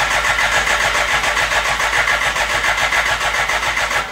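Electric starter cranking a 1987 BMW K100's four-cylinder engine with the ignition wires disconnected, so it turns over in an even rhythm without firing. The cranking stops right at the end.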